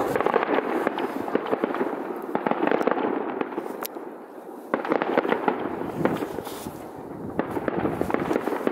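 Fireworks display: dense, rapid crackling and popping of bursting shells, easing off a little just before halfway, then picking up again with a sudden louder burst.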